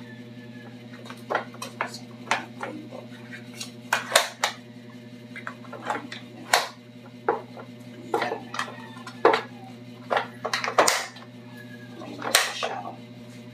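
Hard plastic parts of a Yoboo baby high chair knocking and clicking against each other as the seat shell is handled and fitted, in irregular taps with a handful of sharper, louder knocks. A steady low hum runs underneath.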